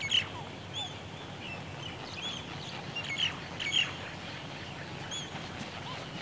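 White terns calling: many short, arched chirps at irregular intervals, loudest just after the start and again around three to four seconds in.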